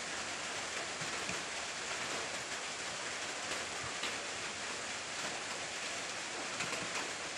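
Steady, even background hiss with a few faint light ticks.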